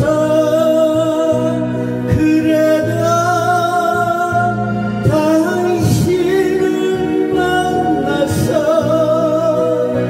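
Korean trot song sung by a man into a microphone over a recorded backing track, with long held notes and vibrato.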